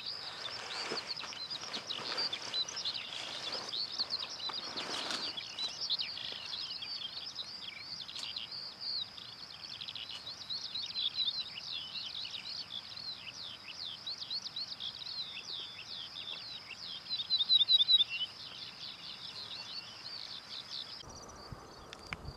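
Songbirds singing, a dense run of high twittering chirps. About a second before the end the twittering gives way to a different, lower background.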